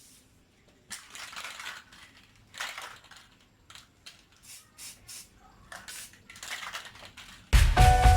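Aerosol can of Samurai epoxy primer in use: a string of short, irregular hissing bursts of varying length. Background music comes in loudly near the end.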